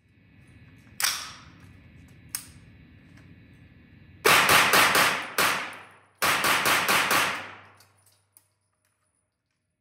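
Rapid semi-automatic 9mm fire from an AR9 carbine with a slant muzzle brake: a single shot about a second in, then two quick strings of about five or six shots each, echoing in an indoor range.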